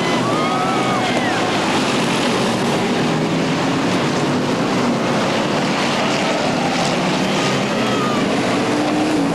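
A pack of stock cars racing around a short oval track, their engines running hard in a steady, loud, continuous drone.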